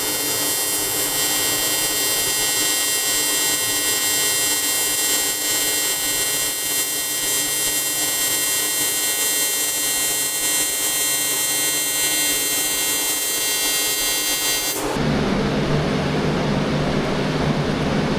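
AC TIG welding arc on aluminium: a steady, loud buzzing hiss that cuts off suddenly about fifteen seconds in. After that a low hum is left.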